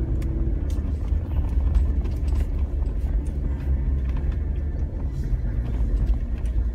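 Steady low rumble of a vehicle's engine and tyres on a dirt road, heard from inside the cabin, with scattered faint clicks and ticks.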